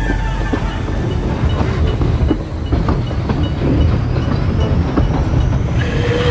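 Puffing Billy narrow-gauge steam train running, a steady rumble with the clicking of wheels over the rails. Near the end the locomotive's whistle starts to blow.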